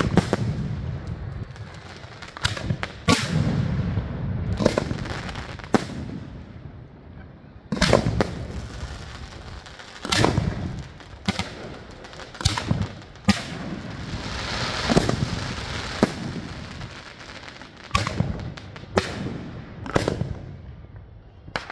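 Aerial fireworks bursting overhead: a string of sharp bangs, roughly one a second, each trailed by a low rumbling echo.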